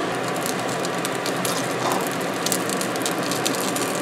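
Pierogi frying in olive oil in a nonstick pan: a steady sizzle with many small crackling pops, while they are turned over with tongs.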